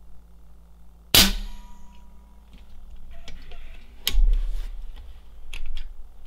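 AEA Challenger Pro .25 regulated PCP air rifle fires once with a sharp report and a short metallic ring, about a second in. About three seconds later its cocking action is worked with a loud clack, followed by a few light clicks. The chronograph reading stays unchanged and he then warns that the magazine can be run dry, so this shot was fired with the magazine empty.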